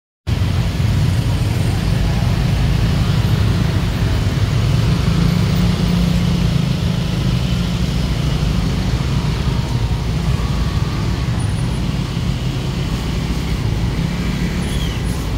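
Street traffic noise in a crowded market lane: motorbike and van engines running and passing close by, over a steady low rumble.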